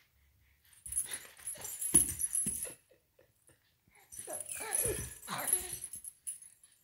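A baby vocalising in short sounds that slide up and down in pitch, about four seconds in. Before that there is a second or so of rustling with a sharp bump.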